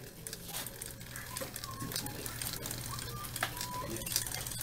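Small tracked robot rover's electric gear motors running with a steady low hum as it drives over a hard floor, with scattered clicks and rattles from its tracks and chassis.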